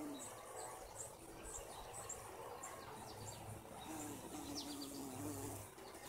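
Bumblebee buzzing as it flies among the flowers, a low wavering hum that fades out early and comes back about two-thirds of the way through. Birds chirp over it: a high chirp repeats about twice a second, then a few quick falling notes come near the end.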